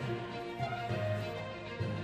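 Background music with held notes over a steady low bass.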